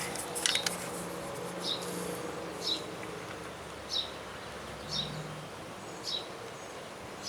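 A small bird chirping: a short, high chirp that drops in pitch, repeated about once a second, over a faint low hum.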